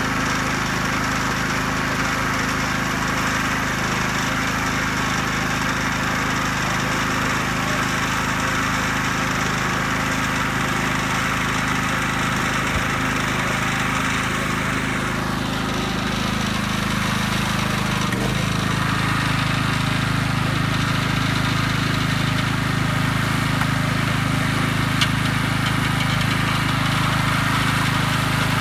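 Small engine running steadily, its note changing about two-thirds of the way through.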